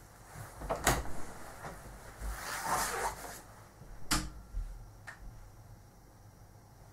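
Interior door with a lever handle being opened and shut: a sharp latch click about a second in, a rustling stretch, then another sharp click about four seconds in and a faint tap just after.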